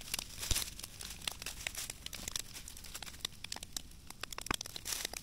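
Burning brush pile crackling, with many irregular sharp snaps over a steady hiss.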